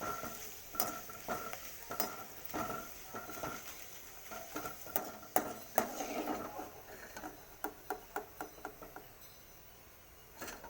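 A utensil stirring and scraping food in a frying pan, with a light sizzle under it. The knocks come about every half second at first, then in a quicker, busier run of clicks towards the middle before tailing off.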